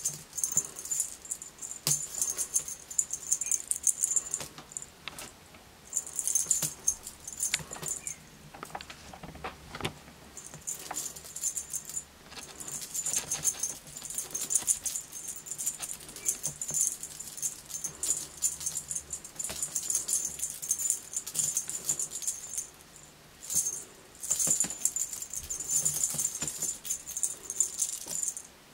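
Cat toy being shaken, a bright jingling rattle that comes in bursts of several seconds with short pauses between.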